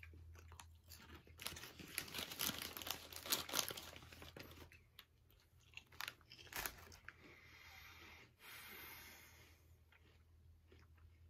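Faint crunching of thin Lay's potato chips being chewed, with many quick crunches in the first half and fewer later on.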